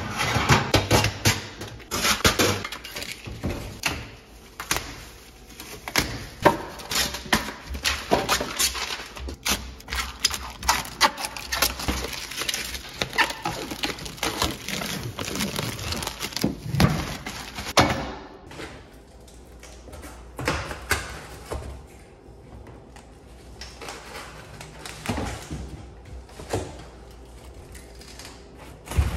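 Irregular clicks, knocks and metal rattles from handling a new electric range and its wire oven racks. After about eighteen seconds it turns quieter, with only scattered knocks.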